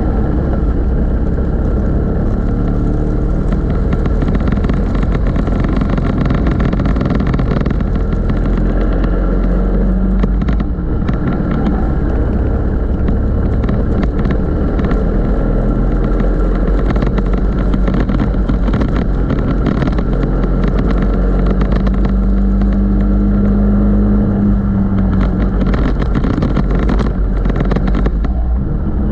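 Racing go-kart engine heard from on board, running hard around the track with its pitch rising and falling through the corners and straights.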